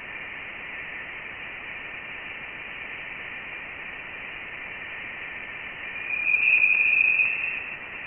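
Voyager 1 Plasma Wave Science instrument data played back as audio: a steady hiss with a faint high tone. About six seconds in, a louder, slightly higher whistle-like tone rises out of the hiss for about a second and a half. These are plasma oscillations whose higher pitch marks the denser plasma of interstellar space beyond the heliosphere.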